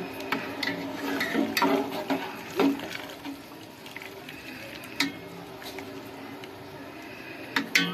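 Pot of water bubbling on the stove as it nears the boil, with a few light knocks of a utensil on the pot; the bubbling is louder in the first few seconds and then settles.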